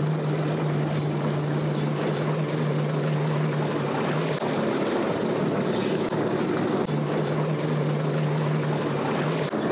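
Boat engines running at low speed, a steady drone with a low hum: a Mercury outboard motor at idle pushing a center-console boat slowly away, with a personal watercraft engine running close by.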